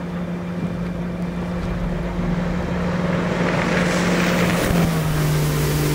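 Motorboat engine running with a steady hum under a rushing noise that builds to a peak about four to five seconds in, the hum dropping slightly in pitch near the end.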